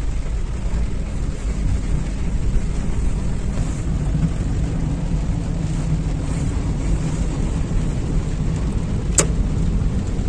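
Steady low rumble of a car driving on wet roads in the rain, heard from inside the cabin: engine and tyre noise with a hiss of spray, and a single sharp click about nine seconds in.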